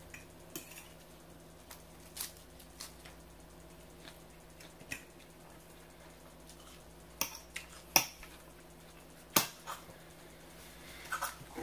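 Eating salad: scattered sharp clicks and crunches, the loudest two about eight and nine and a half seconds in, over a faint steady hum.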